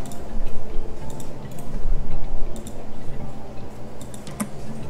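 Computer mouse clicking and its scroll wheel ticking while the view is zoomed, irregular sharp clicks over a steady low hum.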